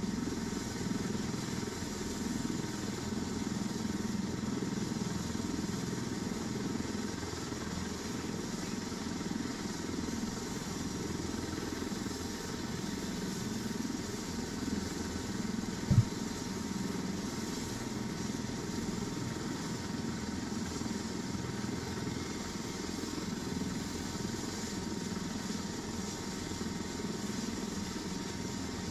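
Air-ambulance helicopter sitting on the pad with its engines idling down and the rotor still turning slowly before shutdown: a steady running hum with a faint constant whine. A single short thump about halfway through.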